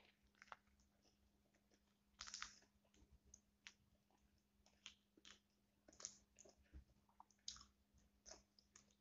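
Faint close-up eating sounds: a person chewing, with scattered short mouth clicks and smacks, while peeling a garlic prawn by hand.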